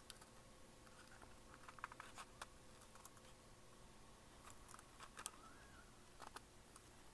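Near silence with faint, scattered small clicks and taps from handling a plastic HO scale model locomotive as its shell is pressed down onto the chassis.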